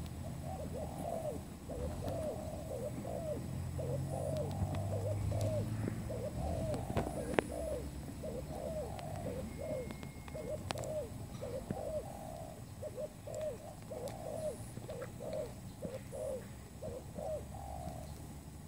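Spotted dove cooing: a continuous string of short, low, soft coos, several a second.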